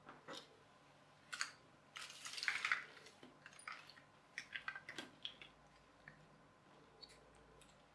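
Small plastic toy-car parts clicking and tapping as they are picked up and handled, with a short crinkly rustle of a plastic parts bag about two seconds in.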